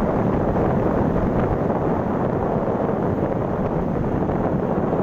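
Wind buffeting the microphone of a moving motorbike at road speed: a steady, dense rush of noise with the bike's running and road noise blended beneath it.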